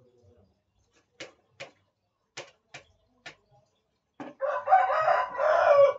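A rooster crowing once, a loud call of nearly two seconds near the end. Before it, five short sharp taps.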